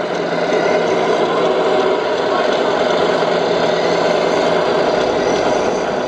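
Sound module of a radio-controlled MAN tractor unit playing a steady diesel truck engine sound as the model rolls slowly.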